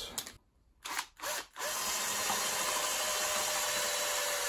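A few light clicks, then from about a second and a half in a cordless drill runs steadily, drilling into a sheared-off bolt.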